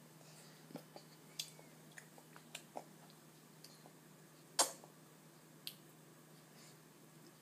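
Scattered light clicks and taps of a baby eating from a bowl, with one sharper knock about halfway through, over a faint steady low hum.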